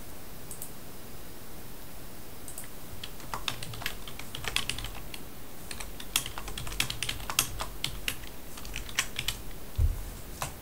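Typing on a computer keyboard: irregular key clicks, sparse at first, then quick and steady from about three seconds in, with a low bump near the end.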